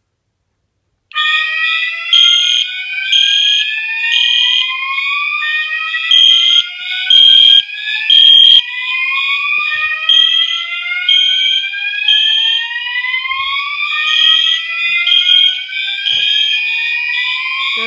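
Home fire alarm system going into alarm about a second in, set off from its smoke detector: several notification appliances sound together, with slow rising whoop sweeps repeating every few seconds over a steady high tone and a high beep pulsing about once a second.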